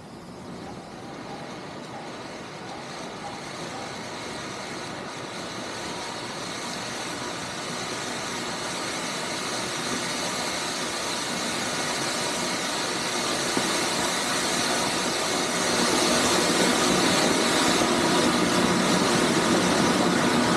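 Small silver firework fountain spraying sparks with a steady hiss that grows louder as it burns, stepping up again about three-quarters of the way through.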